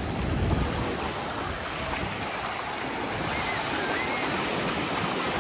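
Ocean surf washing up on a sandy beach, a steady rush of breaking waves.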